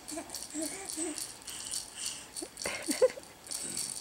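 Plush toy rattle shaken by hand in front of crawling babies, rattling on and off throughout.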